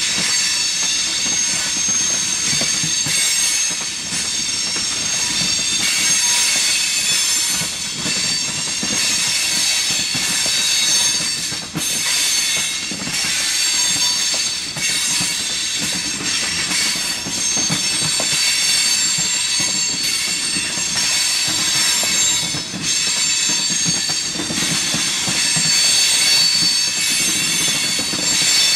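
Red open-top hopper cars of an RJ Corman freight train rolling past. The wheels rumble steadily on the rail, with a high-pitched, wavering squeal from the wheels throughout.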